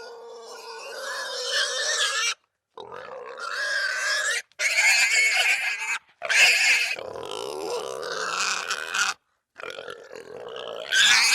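Russian wild boar making a run of pitched calls, about five of them, each one to three seconds long, with short silent gaps between.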